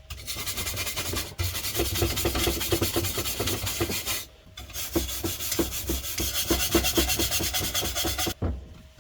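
Hand scrubbing of the clock's metal case in fast back-and-forth strokes, a rasping rub that pauses briefly three times.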